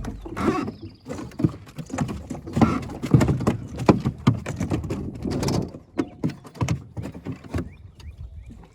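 Irregular run of knocks and thuds as a hooked bass is landed and handled after a hard fight.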